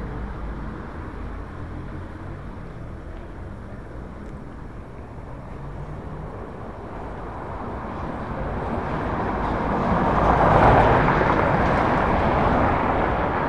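Street traffic noise: a steady low rumble that builds to a louder rush about ten seconds in, then eases slightly.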